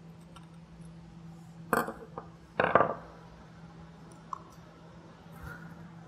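A few sharp metal clicks and clacks from hand work with a small nut driver on a diaphragm pump's retaining nut and washer, including the tool being set down on a wooden workbench. Two louder clacks come about two and three seconds in, with a small click between them and a light ping later.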